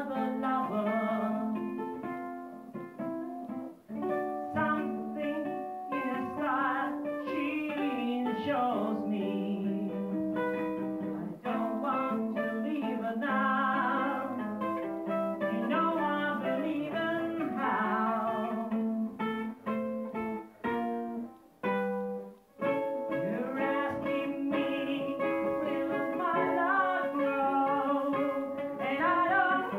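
A ukulele played as accompaniment to a man singing.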